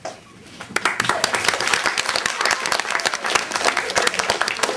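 Audience applauding, starting about a second in: many hands clapping at once.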